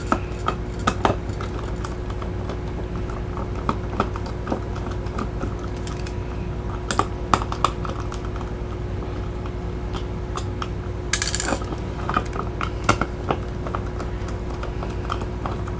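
Scattered light clicks and taps of a small plastic remote-control case and its parts being handled and worked apart, with a short scraping rustle about 11 seconds in. A steady low hum runs underneath.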